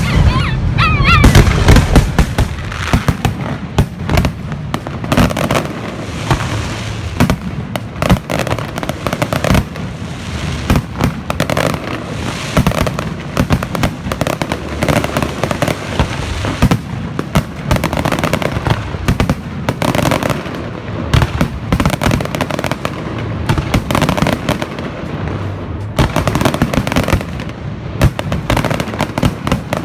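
Aerial fireworks bursting in quick succession: a near-continuous run of bangs and crackling, heaviest in the first couple of seconds.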